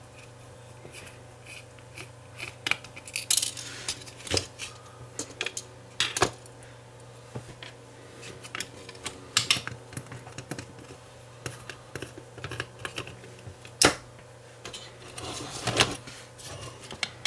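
Irregular small clicks, taps and brief scrapes as a screwdriver and fingers work at the metal heatsink on a Wi-Fi booster's circuit board, trying to pry it off, with the plastic housing knocking now and then. The clicks are sparse, with a few sharper ones near the middle and end.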